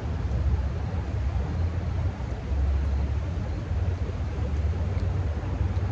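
Wind buffeting the microphone as a steady low rumble, over an even hiss of fast-moving tailwater.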